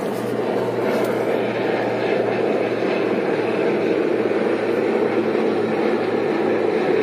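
Military transport helicopter flying past, a steady loud rotor and turbine noise with a low rhythmic beat.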